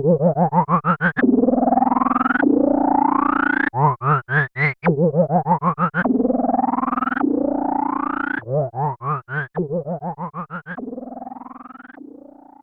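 Moog Werkstatt-01 analog synthesizer played from its keyboard, with the LFO patched to the VCA so the notes pulse in volume. The pulse rate is set by the keyboard voltage and quickens on higher keys. Pulsing notes alternate with steadier notes that brighten over about a second, and the sound fades out near the end.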